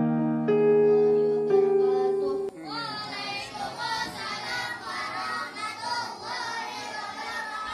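Electronic keyboard music with sustained chords cuts off about two and a half seconds in. A boy then begins a melodic, chanted Quran recitation into a handheld microphone.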